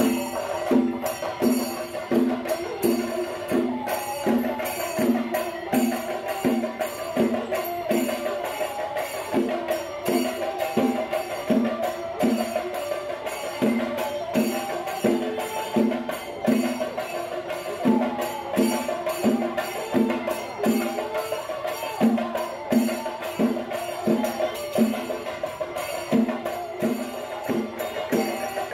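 Music with a steady percussive beat, about two beats a second, under a continuous melody.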